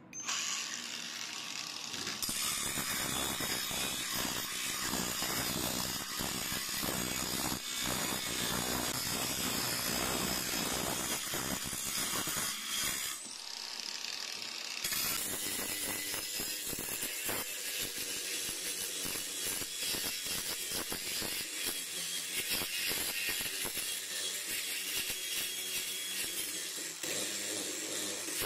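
Cordless angle grinder running with a homemade abrasive disc made from old hard-drive parts, grinding the weathered surface off a wooden beam with a steady rasping. It starts suddenly and eases briefly about halfway through.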